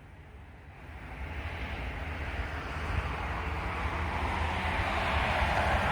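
Approaching train: a low rumble with a wash of wheel and rail noise, growing steadily louder from about a second in.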